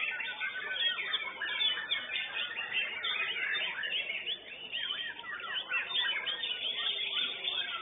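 White-rumped shamas (murai batu) in full song, a dense, unbroken stream of rapid, overlapping whistles and chirps from several caged birds.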